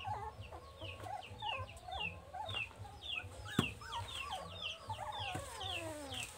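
Chicks peeping in a steady run of short, high, falling peeps, about three a second, with lower calls beneath. A single sharp knock comes about three and a half seconds in.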